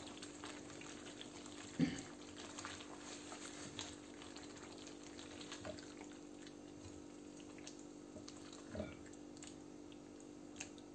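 Spatula stirring cream into simmering chicken gravy in a nonstick wok: faint wet stirring and scraping, with two soft knocks, about two seconds and nine seconds in. A steady low hum runs underneath.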